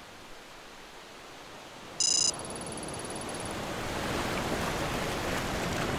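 Motion-graphics sound effects: a short high electronic ping about two seconds in, a thin tone from it ringing on for about a second, then an airy whoosh that slowly swells toward the end.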